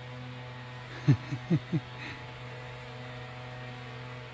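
Small quadcopter drone's propellers giving a steady hum. Just after a second in, four short sounds, each falling quickly in pitch, come one after another within under a second.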